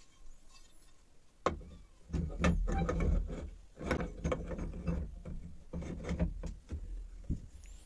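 Rusty steel spade being handled and set under a small screw clamp: a sharp metal knock about a second and a half in, then a run of knocks, clatters and scraping as the blade shifts against the clamp.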